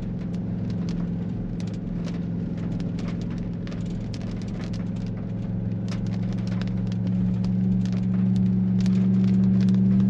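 Vehicle engine running steadily while driving, a low hum that grows louder over the last few seconds, with scattered crackling ticks throughout.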